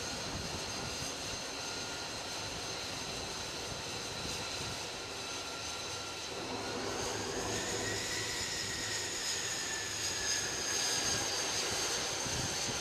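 F-35C's Pratt & Whitney F135 jet engine running: a continuous rushing roar with a high whine. About halfway through the whine climbs in pitch and the sound grows louder, then the pitch slowly sinks again.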